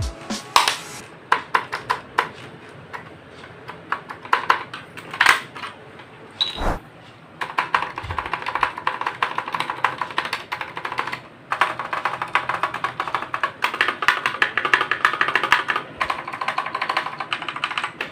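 Mechanical keyboard with lubed Outemu Blue clicky switches. It starts with separate key presses, then from about seven seconds in there is fast continuous typing, with a brief pause in the middle of it.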